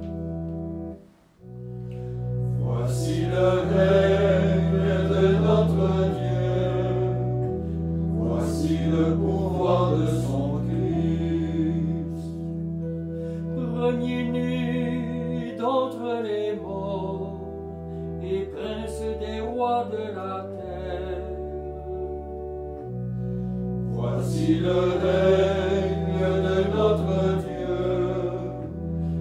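A small group of men's voices singing a chant-like liturgical song, phrase by phrase, over sustained low accompanying chords.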